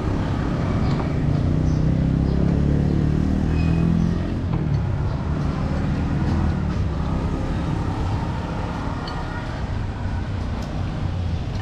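A motor vehicle's engine passing close by, loudest over the first few seconds, then easing off into steady road-traffic noise.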